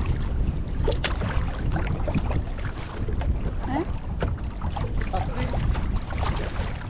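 A canoe being paddled on a lake: water noise from the paddling with a few sharp knocks, over a steady low rumble of wind on the microphone.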